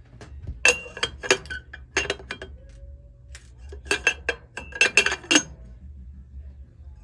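Small metal jeweller's tools and the freshly soldered wire clinking and tapping on the bench, short ringing clinks in three bunches with the busiest near the end.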